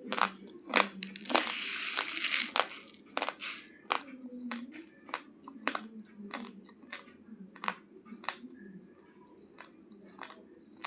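Raw basmati rice grains cracking between the teeth as a person chews: a run of sharp, separate crunches, about one or two a second. In the first couple of seconds there is a louder, crackly burst of crunching.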